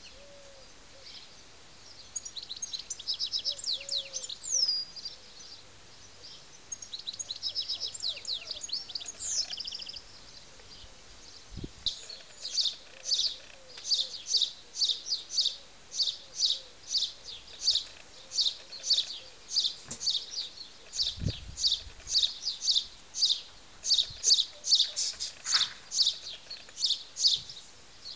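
Garden birds singing: a few trilled song phrases in the first ten seconds, then one bird chirping over and over, about two short high chirps a second, through the rest.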